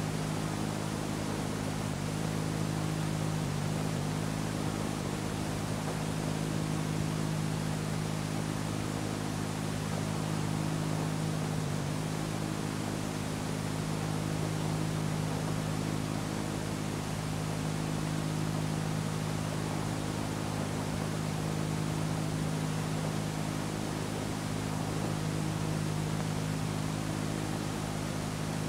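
Steady hiss with a low, even electrical hum: the noise floor of an old analogue recording with nothing on it.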